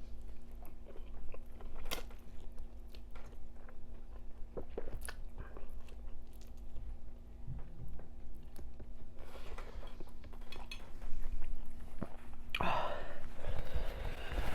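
Close-miked chewing of spicy noodles, with many small wet mouth clicks. Two longer, louder noisy stretches come about ten and thirteen seconds in. A faint steady hum runs underneath.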